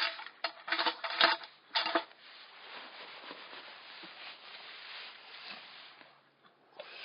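Pieces of firewood knocking and clattering as they are put onto a campfire: several sharp knocks in the first two seconds, followed by a steady, quieter hiss.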